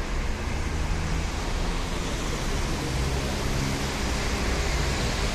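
Steady roar of outdoor noise with a low rumble and no single event standing out: tyres on a wet road and distant jet engines at the airport in the rain.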